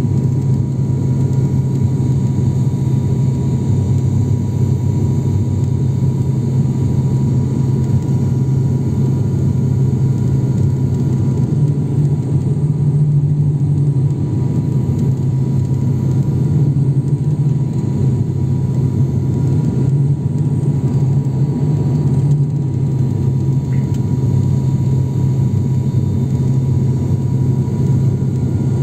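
ATR 72-600's Pratt & Whitney PW127 turboprop and six-bladed propeller droning steadily, heard loud inside the cabin right beside the engine on final approach. It is an even low hum with a faint steady higher tone above it.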